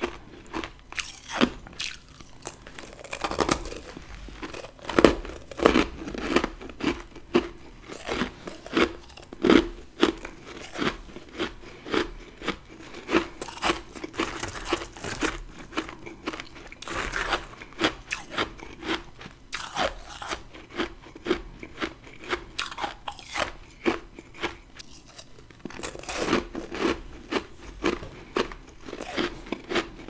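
Close-miked biting and chewing of humidifier freezer frost: a steady run of crisp crunches, several a second.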